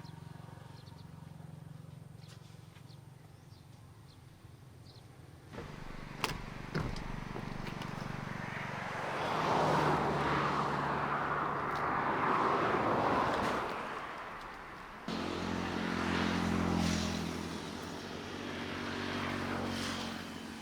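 A small engine running steadily, with a rushing noise that swells in the middle and changes abruptly twice.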